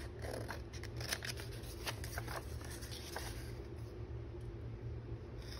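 Small scissors snipping printed paper along the edge of a manila tag, trimming off the excess: a run of quick, irregular snips that thin out after about three seconds.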